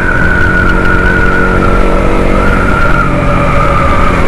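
Motorcycle running at riding speed, with its engine note and a high whine that slowly falls in pitch, under heavy wind rumble on the microphone.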